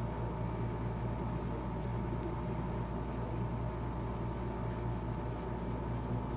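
Steady low hum with a constant hiss and a faint steady tone above it, unchanging throughout.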